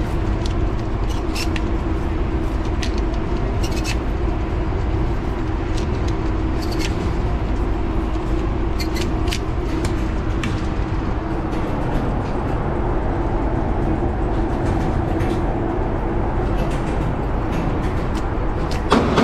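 Steady low hum of an indoor shooting range, with scattered sharp clicks as shotgun shells are handled and loaded into a pump-action shotgun, and a louder knock at the very end.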